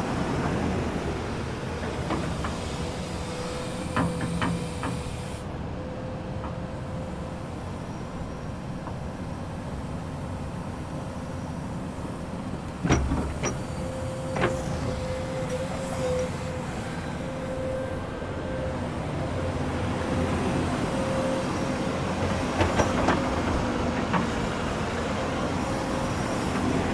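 Komatsu excavator running steadily, with a constant whine over the engine rumble. Sharp knocks come now and then: a few about four seconds in, the loudest about halfway through, and a cluster near the end.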